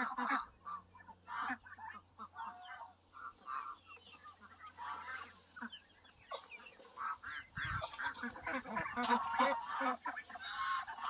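A flock of farm poultry calling: many short clucks and honks from several birds at once, growing busier in the second half.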